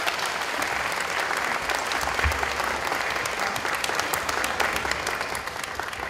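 Audience applauding steadily, a dense patter of many hands clapping, for the winner of a kickboxing bout. A single low thump about two seconds in.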